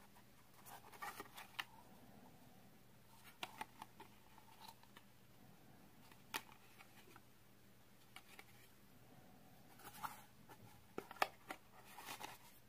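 Faint, scattered clicks and taps of hard plastic toy pieces being handled and pulled apart, in several short clusters, over a faint steady low hum.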